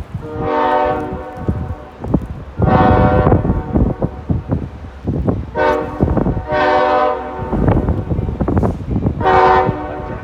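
A passing train's horn sounding about four or five times, each blast about a second long, over the low rumble and clatter of the train's wheels.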